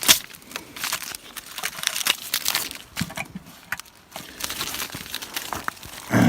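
Irregular rustling and crackling with scattered light knocks, the sound of things being handled or moved about.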